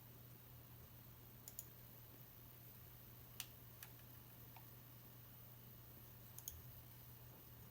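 Near silence with a low steady hum and a few scattered, faint sharp clicks, two close together about a second and a half in and again around six and a half seconds in.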